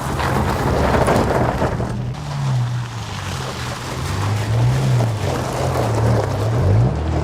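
Toyota Tacoma TRD Pro pickup driving, its engine note rising and falling under a steady rush of wind and road noise.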